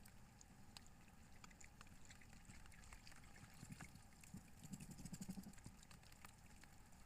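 Near silence: faint night-time outdoor ambience with scattered faint ticks and a brief low rustle about five seconds in.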